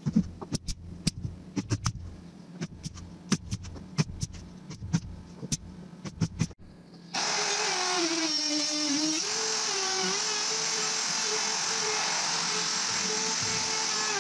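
A brad nailer fires a quick, irregular run of sharp shots, tacking trim pieces on. About seven seconds in, a handheld router with a flush trim bit starts up and runs steadily, its pitch dipping a little as it cuts the trim ends flush.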